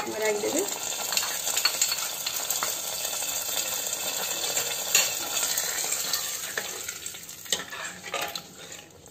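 Hot mustard-oil tempering of fried garlic, ajwain and red chillies sizzling as it is poured into cooked saag in a pressure cooker; the sizzle dies away after about seven seconds. A few clinks of a steel ladle stirring it in, one about five seconds in and more near the end.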